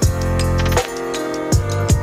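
Background music: sustained bass and chord notes with a drum beat, a deep falling bass hit landing about every two seconds.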